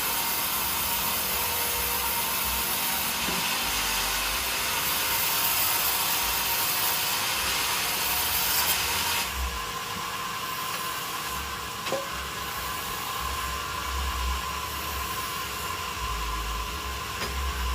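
Sawmill saw cutting through teak wood, a dense, steady hiss of the blade in the timber. About halfway through the hiss drops away, leaving the machine's steady hum, with a single sharp knock a little later.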